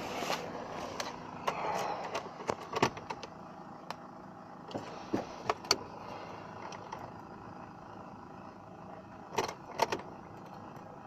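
Car keys jangling with scattered clicks and knocks as the car is readied to start, the engine not yet running. The knocks come in a few clusters, the loudest near the end.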